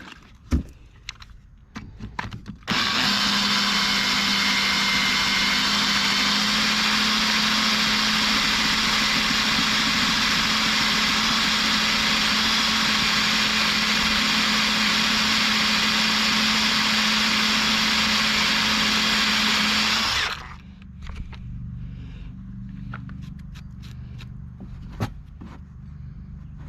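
Electric drill running at a steady speed, drilling out a snapped bolt in an alloy cylinder head. It starts about three seconds in and stops suddenly about twenty seconds in, with a few clicks of handling before and after.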